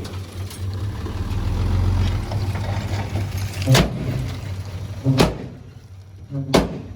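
Heavy diesel construction machine's engine running steadily, dying away after about five seconds, with three sharp knocks about a second and a half apart.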